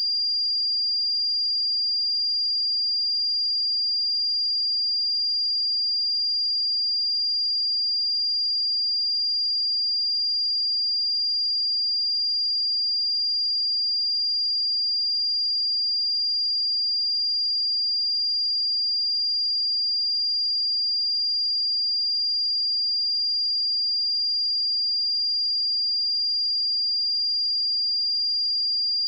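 Pure 4793 Hz sine-wave test tone: one steady, unwavering high-pitched note.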